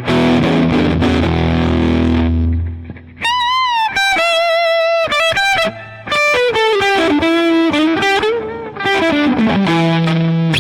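Electric guitar on its bridge pickup played through a JOYO R-21 analog overdrive pedal with its bass and treble turned all the way up: distorted chords first, then a lead line with string bends that steps down in pitch, ending on a chord.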